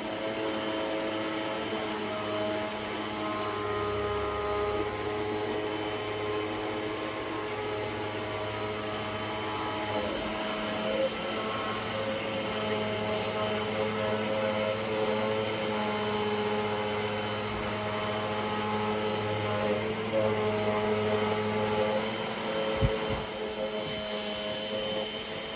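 Eureka NEU100C bagless upright vacuum cleaner running steadily, its motor giving a whining hum over a constant rush of air. The pitch of the whine shifts slightly a few times along the way.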